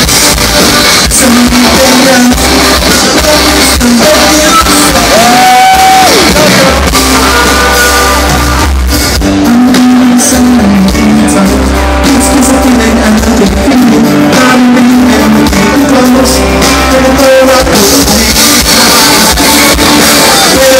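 Live band playing with a singer, loud through a phone's microphone.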